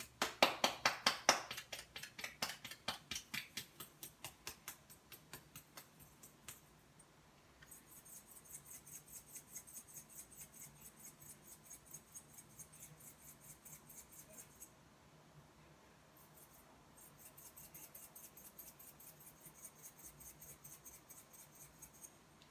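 Quick, even scraping clicks from hand work in a bowl while shortcrust dough ingredients (yolk, flour, salt) are being combined, coming in several runs with short pauses. They are loudest at the start and fade to a fainter run.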